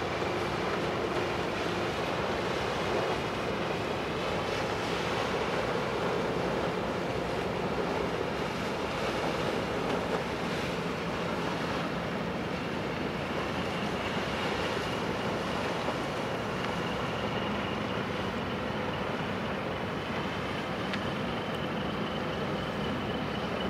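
Steady wind and lapping-water noise, with the engine of a small passenger ferry running as it passes close by. A faint steady high whine comes in about halfway through.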